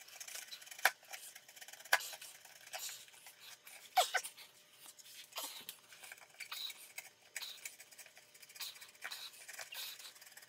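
Razor blade cutting and scraping through a cardboard port tube inside a subwoofer cabinet: light, irregular scratching with a few sharp clicks, the loudest about one, two and four seconds in.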